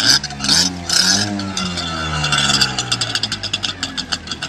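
A Power Ski's engine being revved once while it sits in the water. It starts with a sharp burst, climbs in pitch for about a second, then slowly falls back to a fast, even, pulsing idle over the next couple of seconds.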